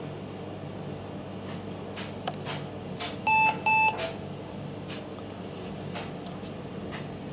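Two short electronic beeps in quick succession from the Fujitsu Siemens ESPRIMO desktop PC, over the steady hum of its cooling fans and a few light clicks.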